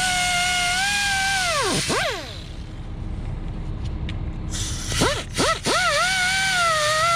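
A power wire wheel on a grinder whining at speed, its pitch sagging as it is pressed against a hydraulic cylinder part to clean it. It winds down about two seconds in. Around five seconds in it is switched on again, spinning up in a couple of short rising spurts before running steadily.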